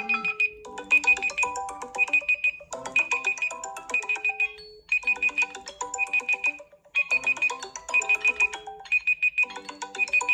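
Several Samsung Galaxy phones ringing and alarming at once: short melodic ringtone phrases that repeat with brief pauses, over a high electronic alarm beeping in quick groups of about four.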